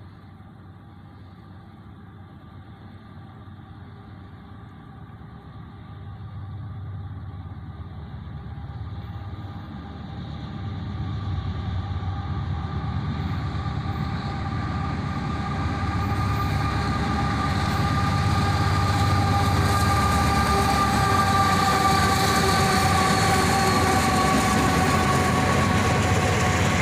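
A pair of GE AC44CW diesel-electric locomotives approaching at the head of a freight train, their engines growing steadily louder as they near, with a steady whine over a low rumble.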